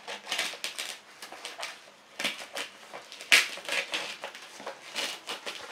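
Scissors snipping through a plastic courier packing bag, with the plastic crinkling and crackling in irregular bursts; the loudest crackle comes a little over three seconds in.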